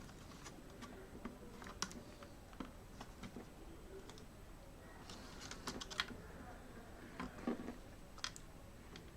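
Faint, irregular light clicks and taps of a laptop's plastic top case and keyboard being handled, with a quick cluster of clicks about five to six seconds in.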